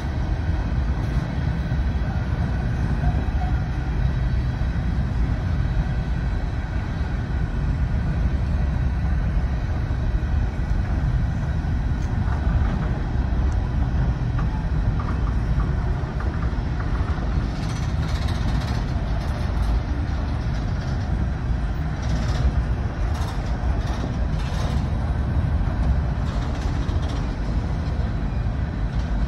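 CSX freight train of hopper cars rolling past, a steady low rumble of wheels on rail, with brief sharper noises from about two-thirds of the way through.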